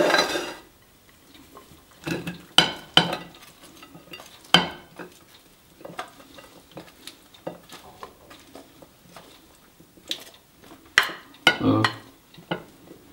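Salad tipped and scraped out of a glass bowl onto a plate: scattered knocks and clinks of the glass bowl against the plate, with short rustling scrapes, in clusters near the start, the middle and near the end.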